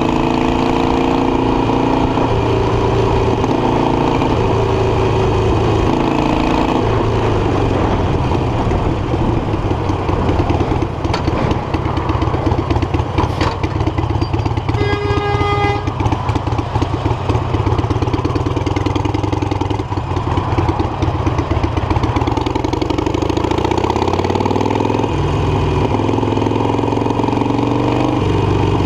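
Harley-Davidson Iron 883's air-cooled 883 cc V-twin running at highway cruising speed, heard from the rider's seat with wind noise over it. The engine note rises and falls with the throttle near the start and again near the end. About halfway through, a high horn-like tone sounds once for about a second.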